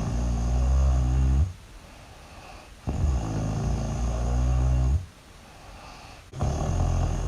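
Loud, deep snoring: low, drawn-out snores of about two seconds each, repeating every three and a half seconds or so, with short quiet pauses between.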